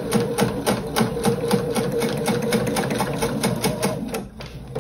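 Electric sewing machine stitching steadily, a fast even run of needle strikes over a steady motor hum, sewing binding through the thick layers of a quilted oven mitt. It stops about four seconds in.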